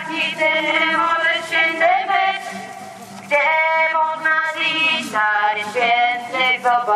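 Voices singing a slow religious song in long held notes; one phrase fades about two seconds in and the next begins a little after three seconds.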